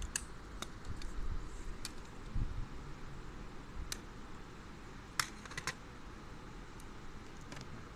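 Scattered light plastic clicks and taps from working inside an open laptop, flipping up the latches of ribbon-cable connectors, with a dull knock about two and a half seconds in.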